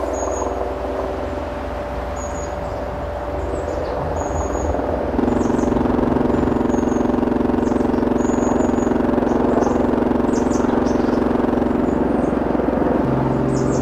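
Electronic noise music played from a laptop: a dense drone of steady stacked tones over a low rumble, getting louder about five seconds in.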